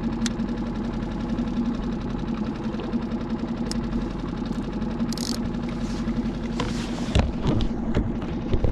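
Skiff's outboard motor idling steadily, with a few low knocks near the end.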